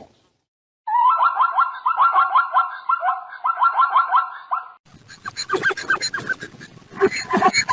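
Animal calls: a fast run of short, repeated pitched calls lasting about four seconds, then a different, harsher and noisier call.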